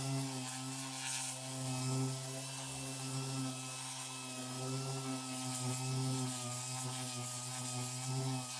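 Electric random orbital sander running steadily while knocking down cured fairing filler on a boat's cabin side: a continuous motor hum whose pitch wavers slightly under load.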